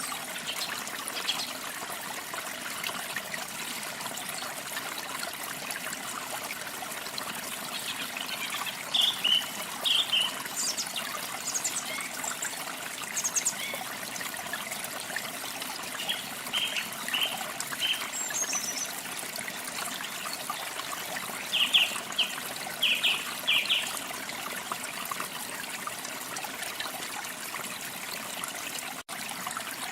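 Steady trickling water with small birds chirping over it, short high chirps coming in little clusters every few seconds. The whole sound drops out for an instant near the end.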